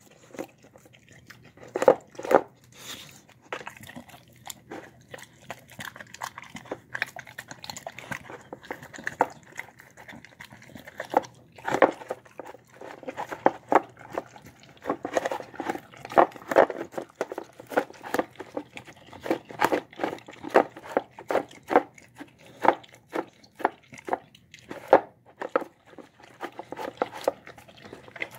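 Dog eating egg and boiled rice from a plastic bowl: rapid wet smacks, licks and chewing, with its muzzle knocking against the bowl. The sounds come in quick clusters, sparser during the first third.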